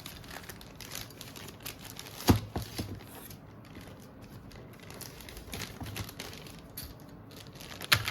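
Handling of phone parts: small irregular clicks and rustles, with a sharp knock about two seconds in and another near the end.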